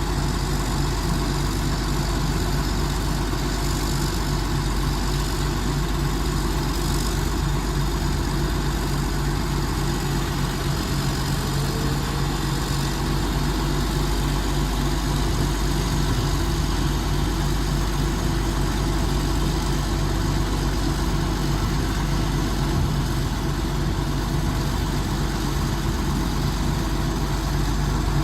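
Diesel engine of a PPM Terex A600 60-ton crane idling steadily, a constant low drone.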